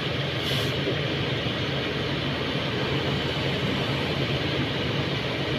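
Diesel engine of a Kobelco SK200 hydraulic excavator running steadily with a constant low hum.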